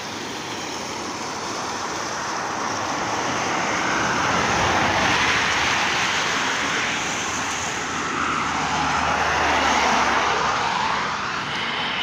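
Motor vehicles passing close by, the noise swelling up and fading away twice, over a steady rush of fast-flowing river water.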